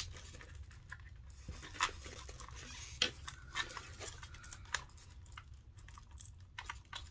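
Scattered light clicks and taps of small RC-car parts and tools being handled, over a low steady hum.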